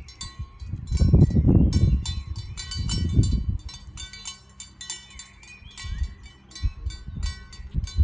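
Livestock bells clanking irregularly as the animals graze, many short metallic clinks with a ringing tone. Two stretches of low rumble come about a second in and again around three seconds.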